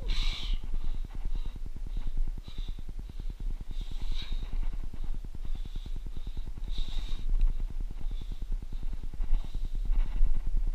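Wind rumbling steadily on the camera's microphone on an exposed rock ridge, with short hissing sounds every second or two.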